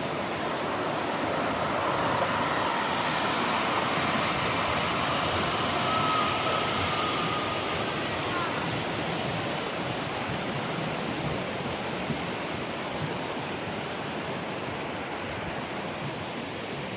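Waterfall pouring close by: a steady, loud rush of falling water that swells a little in the first few seconds and eases slightly later on.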